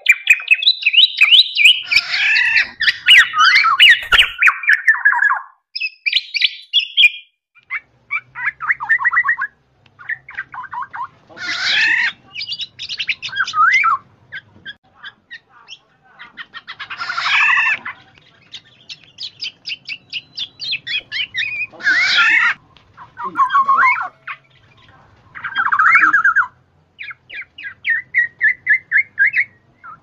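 Black-naped oriole calls: a dense run of calling in the first few seconds, then harsh squawks every four to five seconds, with quick runs of short repeated notes between them.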